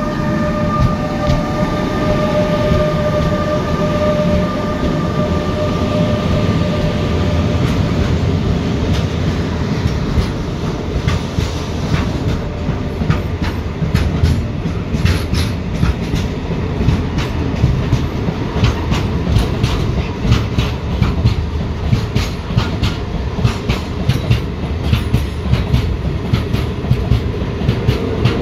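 Freight train passing close by at speed. A pair of Renfe class 253 electric locomotives goes by with a steady whine over their running noise for the first several seconds. Then the covered steel-coil wagons clatter past, their wheels clicking rapidly and rhythmically over the rail joints.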